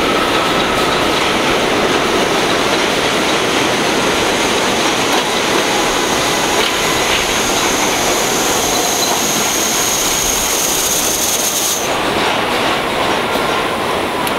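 R62A subway train pulling into an elevated station, with steady, loud wheel and track noise. A high squeal runs through the middle of the arrival and cuts off suddenly about twelve seconds in as the train slows to a stop. A lower tone then slowly falls in pitch.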